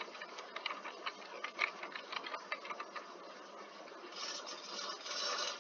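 Computer keyboard keys clicking in an uneven run of keystrokes as a password is typed, easing off about three seconds in. Near the end come two short stretches of a rushing, hiss-like noise.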